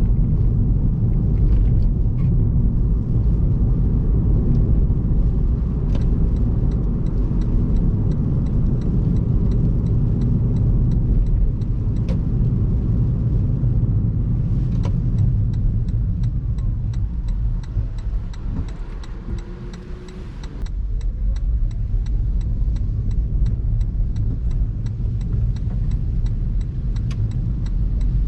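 Car driving on an expressway in heavy rain: a steady low rumble of tyres and road. It eases off and dips about twenty seconds in, then comes back up.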